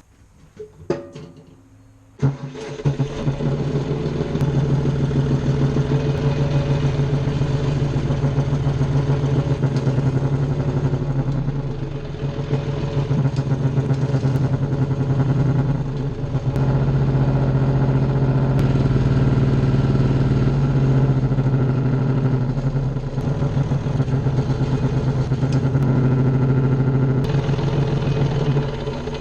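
A few knocks, then a tractor engine comes on about two seconds in and runs steadily with a strong low hum, dipping briefly in level a few times.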